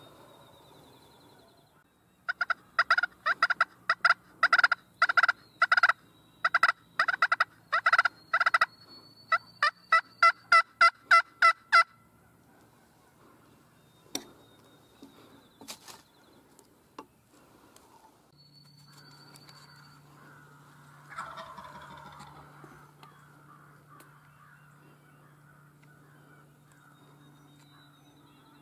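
Wild turkey calling: loud, close runs of short, sharp yelping notes from about two seconds in to about twelve seconds, the last run faster and more even. About two thirds of the way through comes a single fainter, rougher call that fits a distant gobble.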